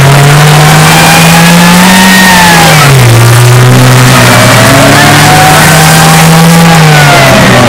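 Daimler Ferret scout car's Rolls-Royce B60 straight-six petrol engine driving and revving. Its pitch climbs, drops sharply about three seconds in, climbs again, and falls away near the end.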